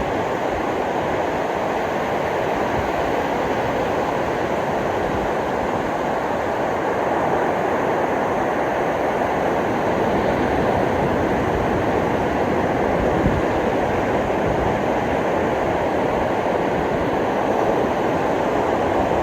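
Ocean surf washing steadily on a beach, an even rushing noise with no single wave standing out.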